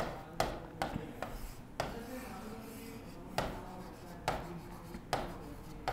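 Faint writing on a board: a quick run of short taps and scratches in the first couple of seconds, then a few more spread out.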